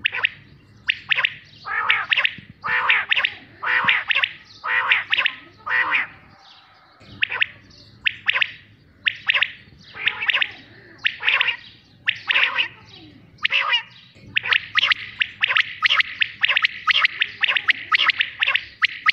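Common quail calling: short sharp calls repeated in groups with brief pauses, then a fast, almost continuous run of calls over the last few seconds.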